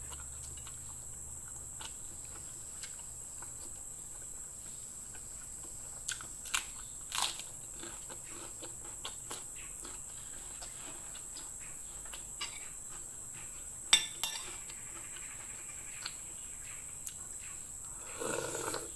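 Eating sounds: scattered soft clicks and taps of utensils on a plate with quiet chewing, a few sharper clicks about a third of the way in and again past the middle, over a steady high insect drone.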